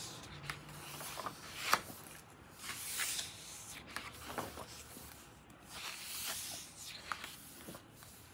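Pages of a large hardcover art book being turned by hand: a few soft paper swishes with small ticks and rustles between, and a sharper snap about a second and a half in.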